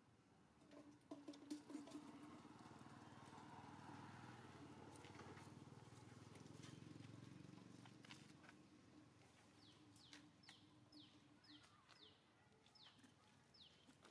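Faint outdoor background: the low hum of a distant motor vehicle swells and fades over the first ten seconds or so. From about two-thirds of the way in, an animal gives short, high, falling chirps about twice a second.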